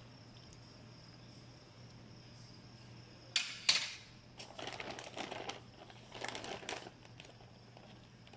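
Packaging crinkling as it is handled: two sharp crackles about three seconds in, then two longer stretches of rustling.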